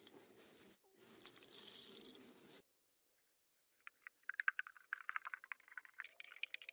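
Scraping and rubbing noise for about two and a half seconds, with a brief break near the start. After a pause of about a second comes a run of rapid small clicks and scrapes.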